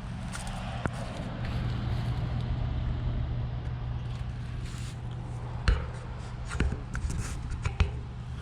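Outdoor heat pump units running: a steady low hum from the compressors and condenser fans. A few sharp clicks and knocks sound about a second in and again near six and eight seconds.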